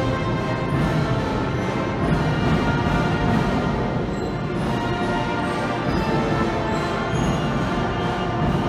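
Procession band of brass and percussion playing a slow processional march, with sustained brass chords over a steady low drum beat.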